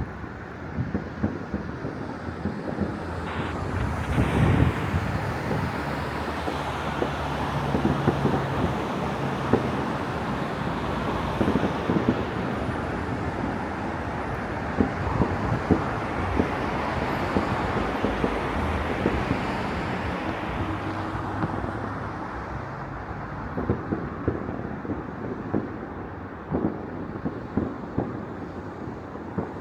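Distant fireworks going off across a city: many scattered bangs and pops over a steady background rush, which swells a few seconds in and eases near the end.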